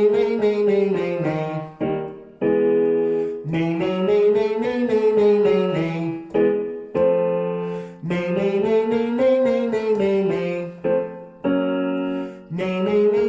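Vocal warm-up exercise with piano: a held piano chord gives the note, then a voice sings a quick scale up and back down over the piano. The pattern repeats three times, each time a step higher.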